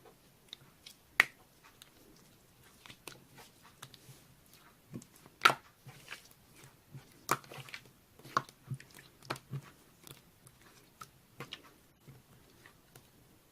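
Slime being squished and pressed by hand, giving irregular sticky clicks and small pops, the sharpest about a second in and again about five and a half seconds in.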